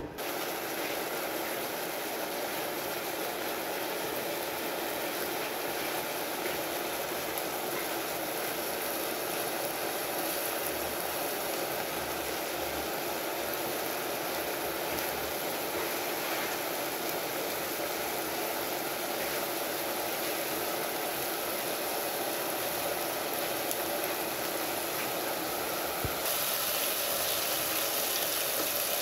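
Marinated beef slices sizzling and bubbling in a pan as the marinade cooks down, a steady frying hiss that turns brighter near the end.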